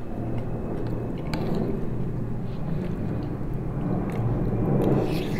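A person chewing a mouthful of food close to the microphone, with a few small sharp clicks.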